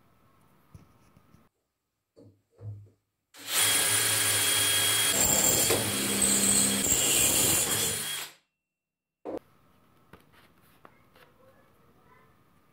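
DeWalt cordless hammer drill running under load as its bit bores into a steel square tube, a steady motor sound lasting about five seconds before it stops.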